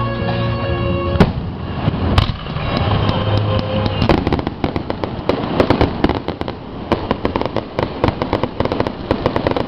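Fireworks: two sharp bangs in the first couple of seconds, then from about four seconds in a dense, rapid crackle of many small reports as a low barrage goes off.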